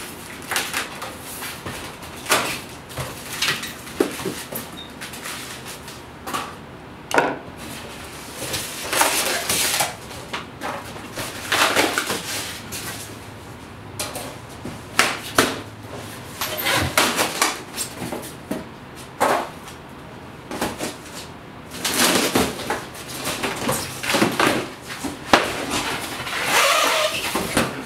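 Cardboard box and packing material being handled and pulled apart while unpacking: irregular rustles, scrapes and knocks.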